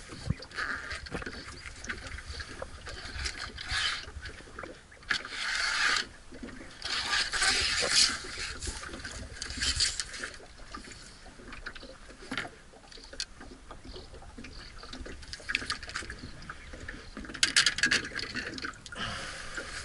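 Water splashing and rushing against the hull of a small fibreglass boat, swelling in bursts of a second or two, with light knocks and clicks as fishing rods and gear are handled in the boat.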